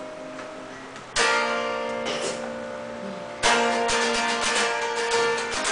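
Hollow-body electric guitar strummed in chords: one chord is struck about a second in and left to ring, then steady rhythmic strumming starts about three and a half seconds in.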